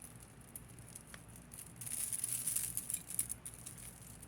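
Beaded costume-jewelry necklaces and thin metal chains clicking and rattling as they are handled and pulled apart from a tangle, busiest about two seconds in.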